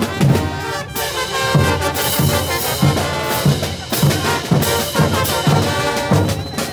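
Brass band playing a morenada: trumpets and trombones over a steady bass drum beat.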